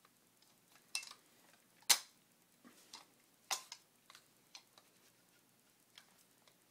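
Scattered metal clicks and knocks from a Winchester Model 12 shotgun's barrel and magazine-tube assembly being handled as the fore-end assembly is worked forward off it. The sharpest knock comes about two seconds in and another comes about a second and a half later.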